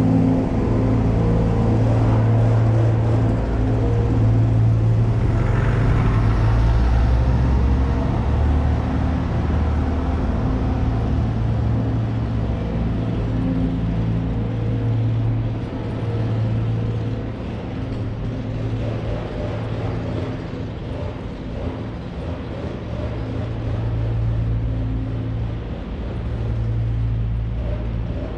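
Steady low mechanical hum with a few held tones, like a running engine, its level wavering slightly and dipping a little partway through.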